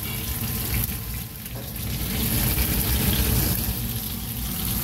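Fish fillets sizzling in hot oil in a frying pan, a steady hiss with a low rumble beneath it.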